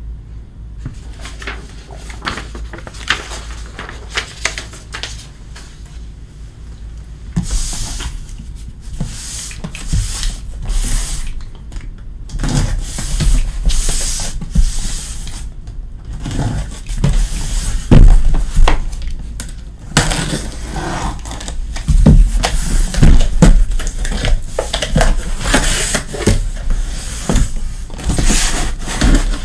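Cardboard shipping case being opened and handled: rustling and scraping cardboard with repeated knocks and thumps as the boxes inside are moved. The loudest thump comes about two-thirds of the way in.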